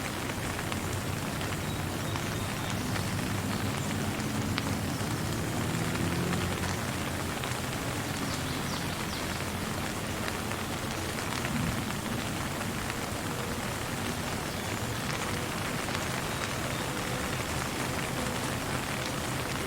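Steady rain falling, with a constant hiss and scattered drop ticks, over a low rumble.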